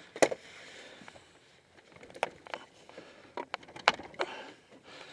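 Handling noise on a kayak: several sharp knocks and clatters with scraping in between as gear is shifted aside to make room for the trolling motor mount.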